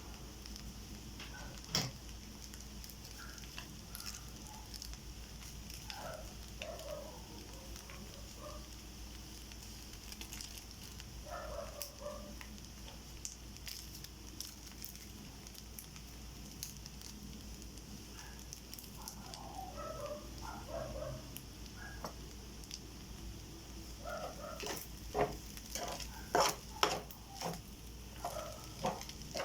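Rice frying in a pan, with a steady sizzle throughout. Near the end there is a run of sharp clicks and scrapes from a spatula stirring against the pan.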